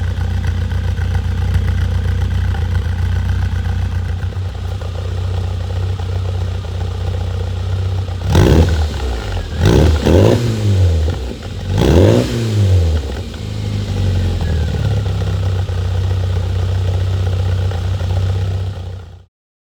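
Classic Mini Cooper's BMC A-series four-cylinder engine idling from its exhaust on its first run after restoration. It is revved briefly three times in the middle, each rev rising and falling back to idle. The sound cuts off suddenly near the end.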